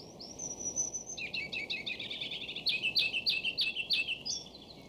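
A songbird singing: a long high whistled note, then a quick run of chattering notes and a string of sharp descending notes, ending on a short rising note, over a faint steady hiss.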